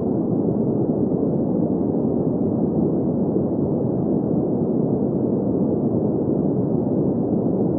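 Steady generated sleep noise of the green-noise kind: an even, muffled hiss weighted to the low and middle range, with no high end and no changes.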